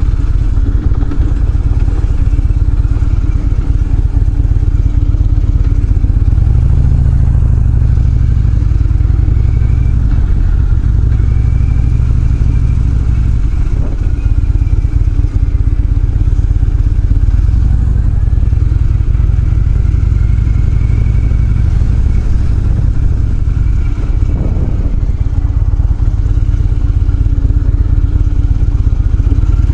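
Harley-Davidson motorcycle's V-twin engine running at low revs while riding slowly, its note shifting a little now and then.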